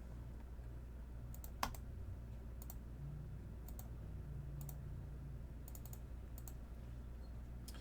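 Faint, scattered computer clicks from a mouse and keyboard, roughly one every second, the loudest about a second and a half in, over a low steady hum.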